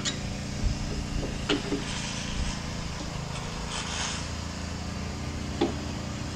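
Light plastic clicks and rubbing as a BMW E46 M3 reverse light housing is pushed and twisted into its clips in the trunk lid, with sharp clicks about a second and a half in and again near the end. A steady low hum runs underneath.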